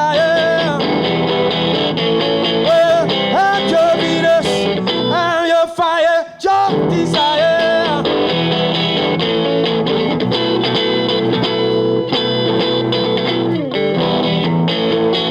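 Live band playing a rock song led by electric guitar. Over the first half a lead line bends up and down; after that the guitar holds steady chords, with a falling slide near the end.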